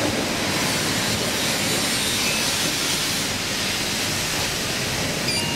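A steady, even rushing noise with no rhythm or clear pitch.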